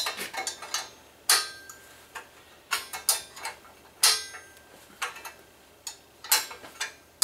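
Wrench clicking against the nuts and washers of the bench grinder's mounting bolts as they are tightened by hand: a string of sharp metallic clicks, irregularly spaced about every half second to a second, as the wrench is swung and refitted on the nut with no ratchet.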